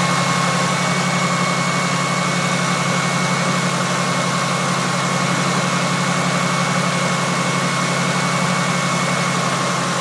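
Ford 4.0 L SOHC V6 idling steadily, with a steady high whine running alongside. There is no timing-chain rattle at idle, the sign that the newly replaced chain tensioners are holding the chains tight.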